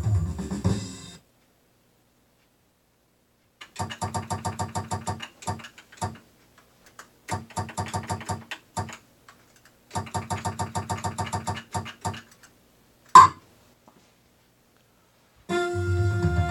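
Wheel of Fortune pinball machine's sound effects: a music cue ends about a second in, then three runs of fast pitched ticks, each slowing to a stop like a prize wheel clicking to a halt, and one sharp loud hit. Music starts again near the end.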